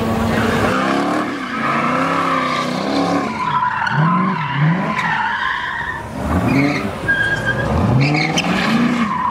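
A car sliding sideways in a drift: a steady engine note for about a second, then the engine revs climb and drop again and again while the tyres squeal and skid on the asphalt.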